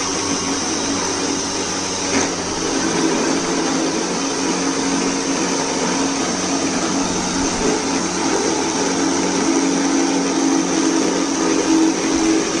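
A home-made CNC machine's 775 DC motor spindle running steadily with a motor whine, with a brief tick about two seconds in.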